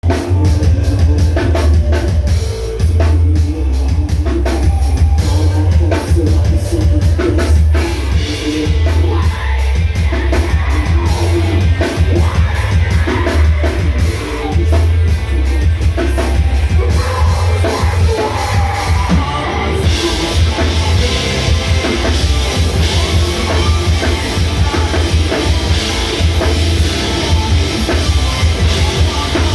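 Rock band playing live, with a heavy bass and a driving drum beat; about twenty seconds in the sound fills out with cymbals and a brighter, fuller top end.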